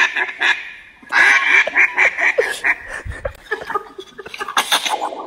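Duck call blown in quick runs of quacks, heard over a Zoom call through a laptop speaker: a run breaks off about half a second in, and a second run of about eight quacks follows. Near the end come a few sharp noisy cracks, taken on the call for shooting.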